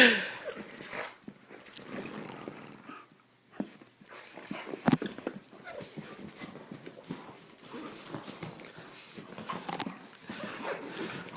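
A pug and a mastiff puppy play-fighting: a short dog yelp right at the start, then scuffling and knocking of paws and bodies, with a sharp thump about five seconds in.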